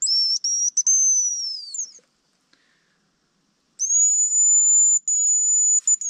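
Hazel grouse decoy whistle blown in thin, high whistled calls that imitate a hazel grouse. The first call lasts about two seconds, with brief breaks, and slides down in pitch at the end. After a pause, a long level note starts about four seconds in.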